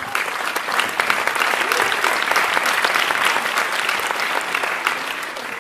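Audience applauding: many people clapping, swelling in the first second and easing off slightly near the end.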